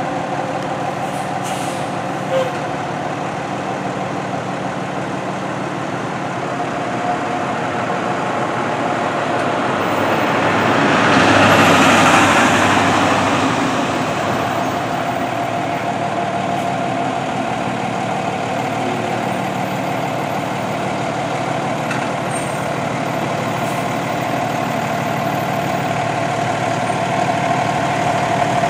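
Fire department aerial ladder truck's diesel engine running as the rig pulls slowly out of the firehouse bay, a steady hum throughout. A louder rushing swell of air rises and fades about eleven seconds in.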